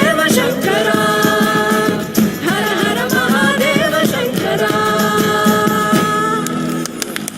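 Live Indian devotional music: a band with percussion under wordless vocal phrases that bend and waver, alternating with sustained held notes. The music drops away about seven seconds in as the song closes.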